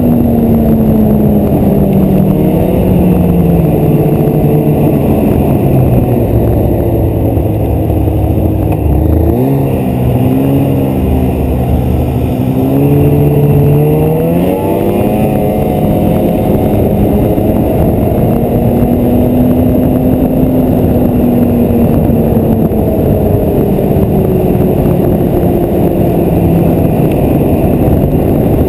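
Snowmobile engine running under way, over a steady rushing noise. Its pitch falls over the first few seconds and climbs again about halfway through as it speeds up, then holds steady.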